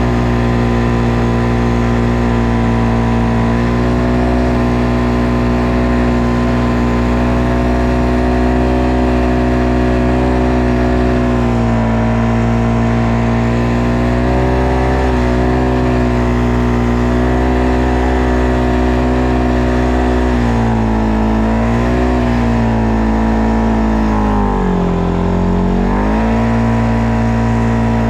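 ATV engine running at a steady speed, easing off briefly near the end and then picking back up.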